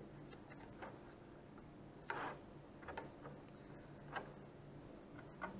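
Faint scattered clicks and small scrapes of a hobby knife tip and fingertips on a painted polycarbonate RC truck body, lifting and peeling the masking film off the back window. The loudest is a brief scrape about two seconds in.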